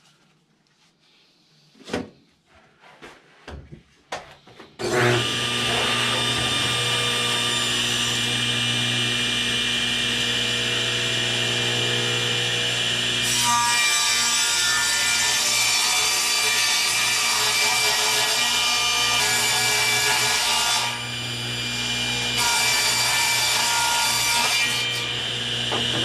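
A few small knocks, then a table saw is switched on about five seconds in and runs with a steady whine. About halfway through the blade starts ripping a long board; the load eases briefly and then the cut resumes.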